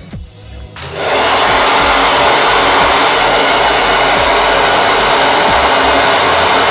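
BaByliss Pro 2000-watt blow dryer switched on about a second in, then running with a loud, steady rush of air.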